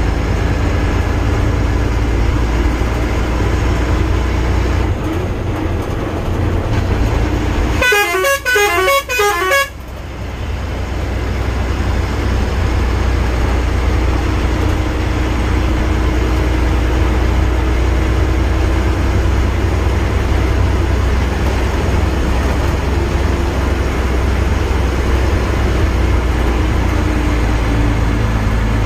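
Steady engine and road noise from a vehicle driving. About eight seconds in, a musical horn sounds a quick run of notes for about two seconds.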